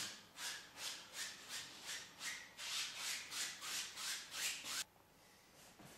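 Brisk back-and-forth rubbing strokes of a painting tool working oil paint, about three a second, stopping suddenly about a second before the end.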